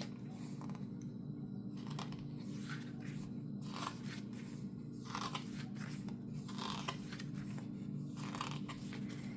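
Photobook pages being turned and handled: soft paper rustles every second or two over a steady low hum.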